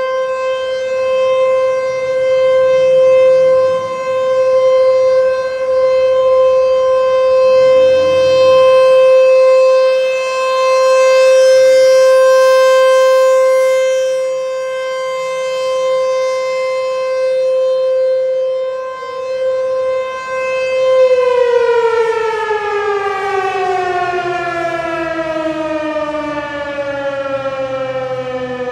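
American Signal Corporation T-128 rotating outdoor warning siren sounding a steady single-tone alert, swelling and fading in loudness every few seconds as it turns. About three quarters of the way in it is switched off and winds down, its pitch falling smoothly.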